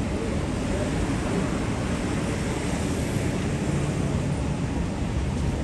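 Steady busy city street noise, an even low rumble with no single sound standing out.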